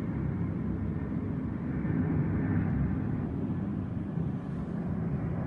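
Distant jet engine rumble of an Airbus A330 airliner departing, a steady noise that swells slightly and eases off.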